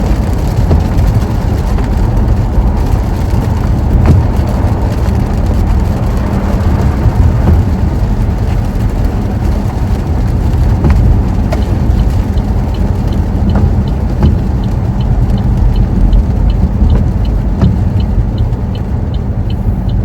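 Inside a car driving on a wet road in pouring rain: a steady, loud low rumble of engine, tyres and rain. About two-thirds of the way in, a turn-signal indicator starts ticking about twice a second.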